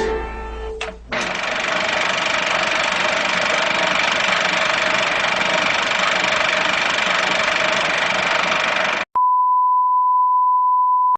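A steady hissing noise with a few faint steady tones in it for about eight seconds, cutting off abruptly; then a single steady high beep tone holds for about two seconds.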